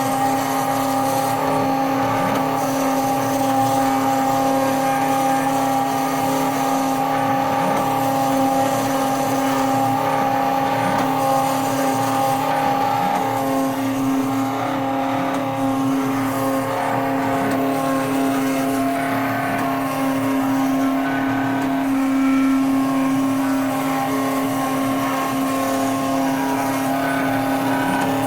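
CNC router milling a printed circuit board: the spindle motor runs with a steady whine, with fainter tones above it that shift in pitch now and then as the machine's motors move.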